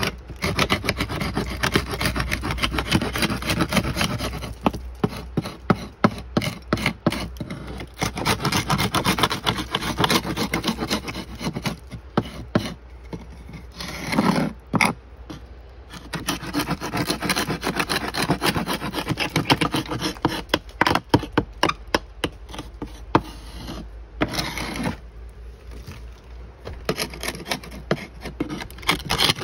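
Hand-held paint scraper with a wooden handle scraping cracked, flaking old paint off wooden clapboard siding in runs of quick, hard strokes, with short pauses between runs.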